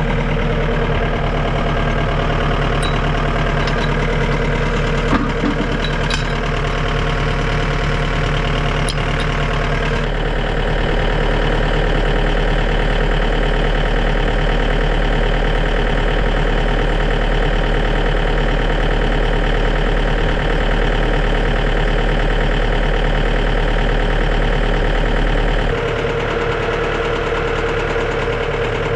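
John Deere tractor's diesel engine running steadily, getting a little louder about ten seconds in and changing tone again near the end. A few light clicks sound in the first ten seconds.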